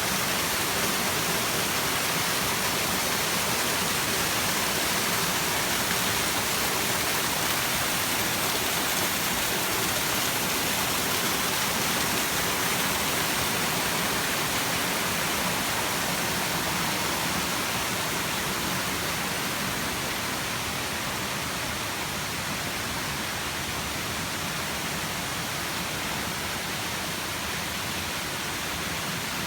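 Waterfall rushing: a steady, even hiss of falling water that eases a little past the middle.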